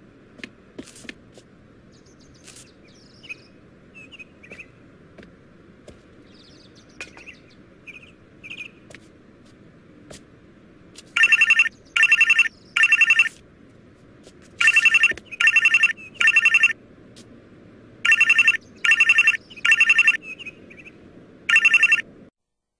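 Faint short high squeaks at first, then a loud electronic telephone ring about halfway through. It trills in groups of three, three and three, then rings once more near the end.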